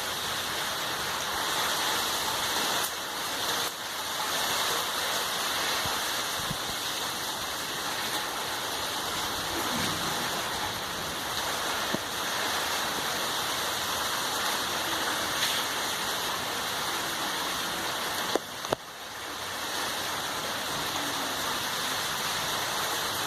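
Heavy rain pouring down in a steady, dense hiss, broken by a brief click and momentary dip about three-quarters of the way through.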